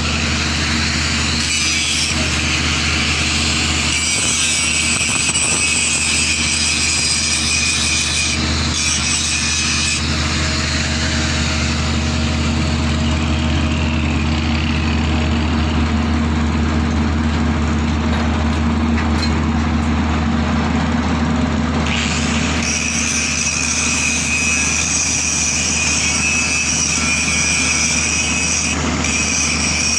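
Engine of construction machinery running steadily with an even low hum, with a higher hiss over it that fades between about ten and twenty-two seconds in and then comes back.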